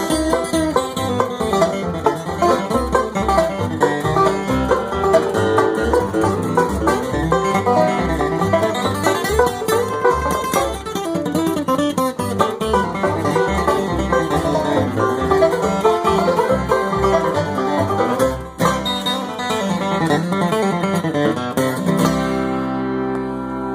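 Bluegrass band playing an up-tempo tune, banjo picking to the fore over steady low bass notes. About two seconds from the end the band lands on a final chord that rings out.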